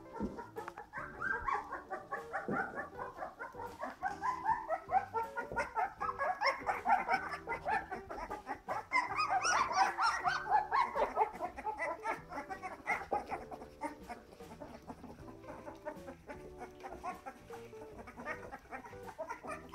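A litter of two-week-old Bernese mountain dog puppies squeaking and whining, many short high-pitched calls overlapping, busiest through the middle and thinning toward the end.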